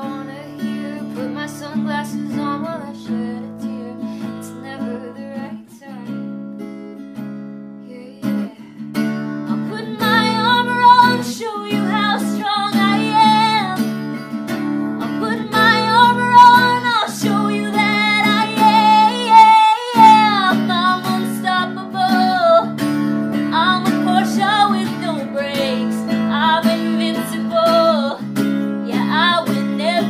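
Background music: acoustic guitar with a woman singing, the voice coming in about ten seconds in.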